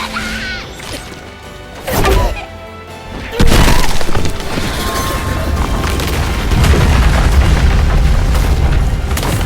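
Bass-boosted anime battle sound effects over background music. A heavy impact comes about two seconds in and a louder crash about a second later, followed by a long, deep rumble.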